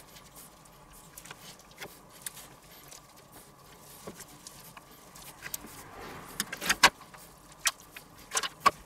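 Kitchen handling noises as gloved hands stuff a raw chicken with parsley and butter in a stainless steel roasting pan: scattered soft crinkles and light clicks from the disposable gloves and the pan. There are a few louder sharp knocks about six and a half seconds in and again near the end.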